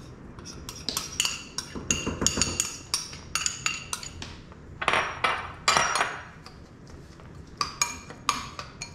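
Metal spoon stirring in a glass bowl, clinking against the sides in a quick, irregular run of ringing clinks, with a short pause about two thirds of the way through.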